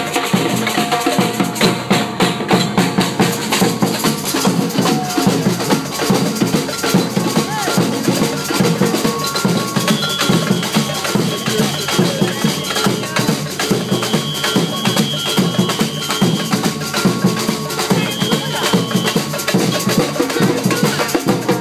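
Live samba-style percussion band playing a fast, steady rhythm on drums, with a large bass drum and a drum kit.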